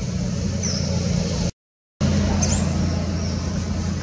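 A steady low mechanical hum, with a few short high chirps over it. The sound cuts out completely for about half a second near the middle.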